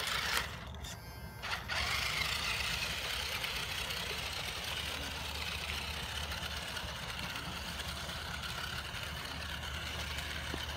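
Toy RC rock crawler's small electric motor and gears whining steadily as it drives over sand and grass, with a short break about a second in.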